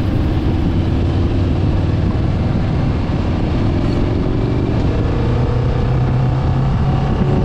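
Motorcycle engine running steadily under way, its note climbing gradually about halfway through as it picks up revs.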